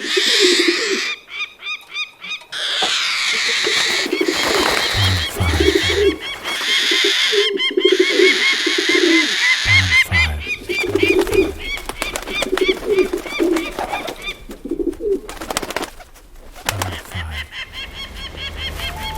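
Pigeons cooing in short repeated phrases, with a chatter of quick high bird chirps over them.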